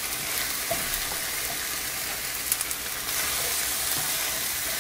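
Diced zucchini, yellow squash, corn and chicken sizzling in a hot wok with a steady hiss, stirred with a wooden spatula that ticks against the pan a few times. The sizzle grows a little louder about three seconds in.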